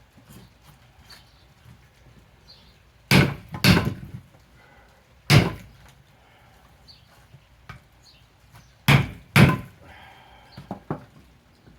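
Heavy chopping blows of a blade into hard, dry wood: a pair of loud strikes about three seconds in, a single one near five and a half seconds, and another pair around nine seconds, with a few lighter knocks between.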